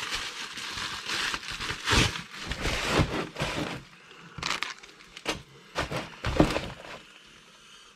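Plastic packaging crinkling and rustling by hand, with scattered sharp clicks and taps, as small plastic course cones are taken out of their bag. It is busy for the first half, then sparser and quieter.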